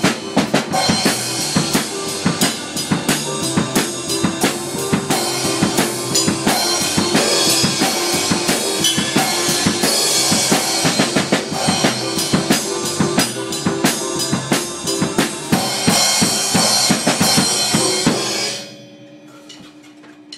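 Acoustic drum kit played fast and busy: kick drum, snare and cymbals in a steady driving beat that stops suddenly near the end, leaving only a faint hum.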